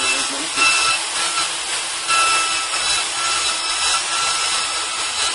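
Robot-held Kress milling motor running at high speed with an end mill cutting into a block. It makes a steady motor whine under the hiss of the cut, and a higher tone comes and goes every second or so as the cutter moves along the material.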